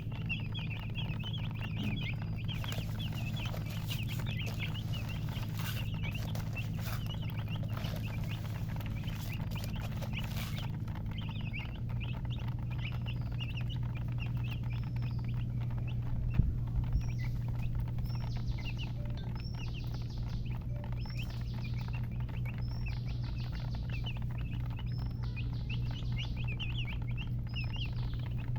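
Many baby chicks peeping without pause, a dense chatter of short high cheeps with longer rising peeps in the second half. A low steady hum runs underneath, and there is a single knock about sixteen seconds in.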